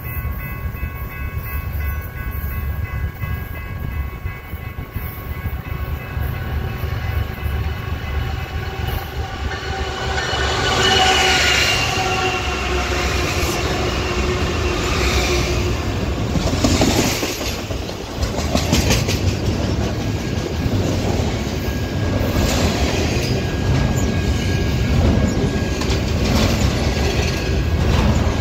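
BNSF diesel freight locomotive approaching and passing close by, loudest about ten seconds in. It is followed by double-stack intermodal well cars rolling past with a steady rumble and repeated clicks of wheels over the rails.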